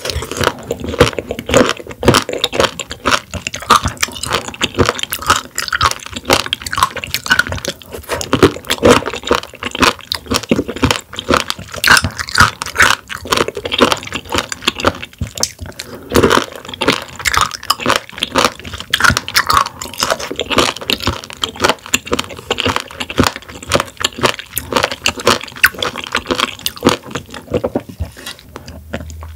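Close-miked chewing of raw warty sea squirt: a dense, irregular run of mouth clicks and crackles.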